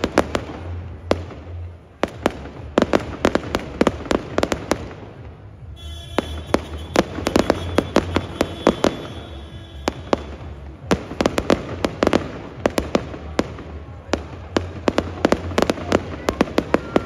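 Fireworks display: aerial shells bursting and crackling in dense runs of sharp bangs, many per second, with a short lull about two seconds in.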